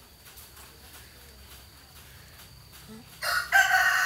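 After about three seconds of faint background, a rooster crows loudly in one long call.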